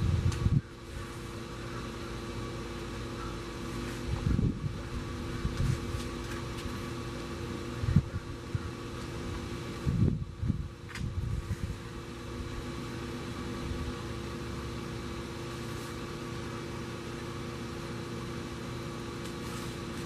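A steady machine hum holding several pitches at once, with short low rumbles of wind buffeting the microphone a few times.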